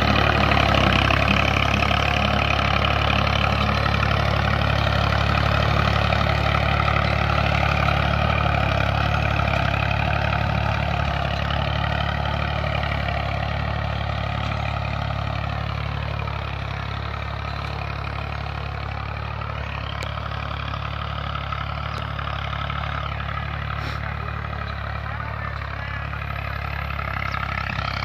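Massey Ferguson 240 tractor's three-cylinder diesel engine running steadily under load while pulling a tillage implement through dry soil. It fades as the tractor moves away, then grows louder again near the end as it comes back.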